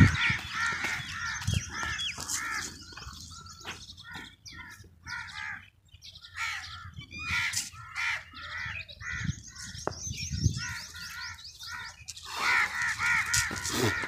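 Crows cawing over and over in many short calls, with a quick run of higher chirps from another bird about nine seconds in.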